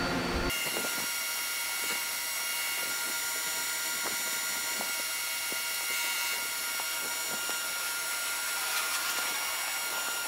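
Sinker EDM machine running with a steady hum and hiss, several thin high-pitched whines held level through it and faint scattered ticks.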